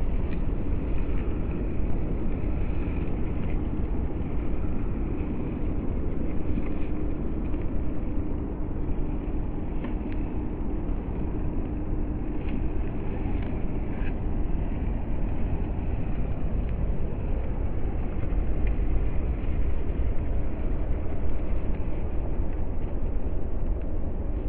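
WPL C24 Toyota Hilux RC crawler climbing a dirt slope. Its small electric motor and gears whine faintly and steadily for several seconds in the middle, and there are scattered light crackles from the tyres on dry grass and twigs, all over a loud steady low rumble.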